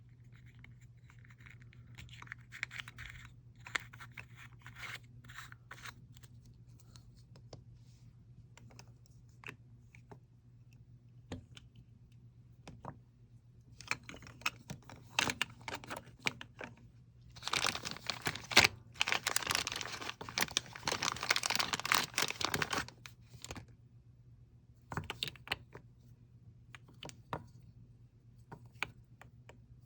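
Small plastic jars of chrome nail powder being handled, with scattered clicks and taps. Past the middle comes a dense stretch of crinkling handling noise lasting about five seconds.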